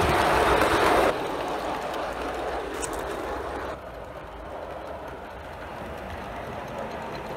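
Gauge 1 live-steam model J65 tank locomotive running with its train on garden track: a steady rushing running noise, loud for about the first second, then dropping abruptly and quieter again from about four seconds in as the train runs farther off.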